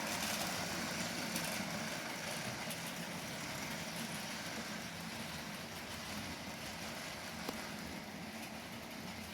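Model trains running on a layout: a steady whirr of the locomotive motors and the wheels rolling on the track, with a couple of faint clicks.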